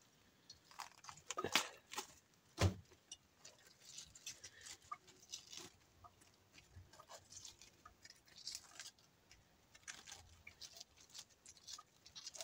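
Faint squeaks and crackles of leaves being pulled off a softened, frozen-and-thawed head of green cabbage, with a couple of louder knocks in the first few seconds.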